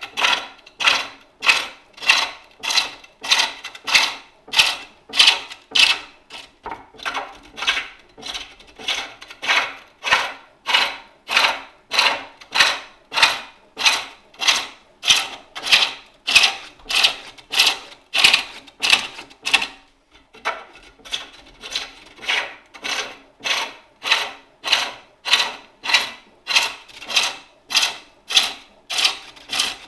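Spring pole lathe turning a wooden bowl: the cutting tool scrapes into the spinning wood on each treadle stroke, giving a steady rhythm of about one and a half to two cuts a second, with a brief break about two-thirds through.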